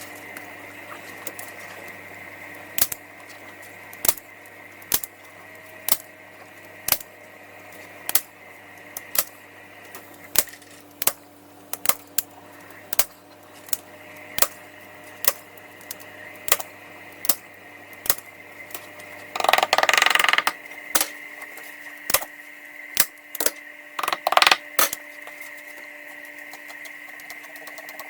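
Manual heavy-duty staple gun firing staples into an ottoman's vinyl covering: about two dozen sharp clacks, roughly one a second, with a brief rustling scrape about two-thirds of the way through.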